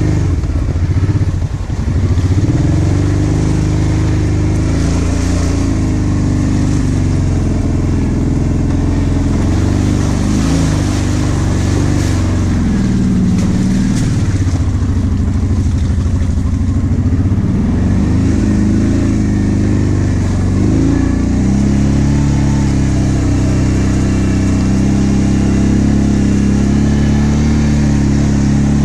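Kawasaki KVF 750 Brute Force ATV's V-twin engine running under way, its pitch rising and falling with the throttle: it dips briefly about a second in, swings up and down again in the middle, and holds steadier near the end.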